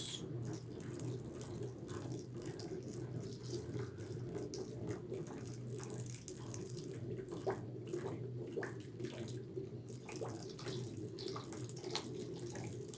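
A spatula churning thick soap paste in an enamel basin, sloshing and scraping with irregular knocks, while alcohol trickles in from a plastic bottle in a thin stream. This is the stage where alcohol is stirred into the cooked tallow soap base.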